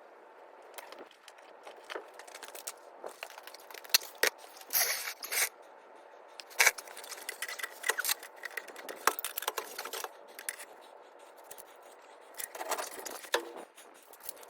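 Scattered metallic clicks, clinks and scrapes of hand tools working on exhaust parts, with a few sharper knocks about four and seven seconds in.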